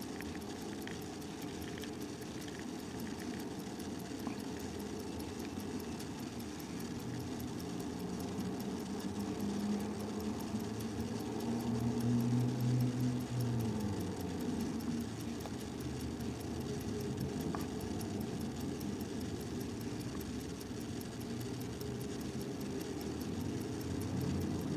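A motor's low, steady rumble, with a humming tone that swells and bends about halfway through.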